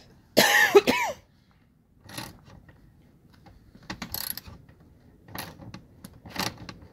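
Metal hand tools clicking and clanking irregularly, roughly once a second, during work on a car interior. About half a second in, a short loud sound with a wavering pitch stands out above the clicks.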